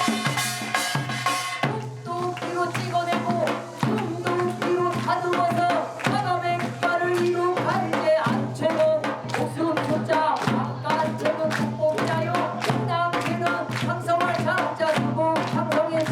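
Upbeat music with a singing voice over a steady drum beat.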